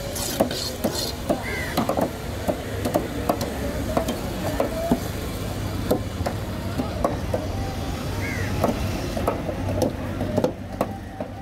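Large knife cutting through cobia flesh and knocking on a wooden cutting table, in irregular sharp knocks.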